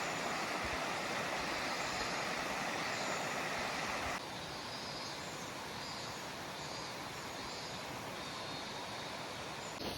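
Steady rushing of a shallow stream running over rocks. About four seconds in it cuts suddenly to a quieter, duller rush.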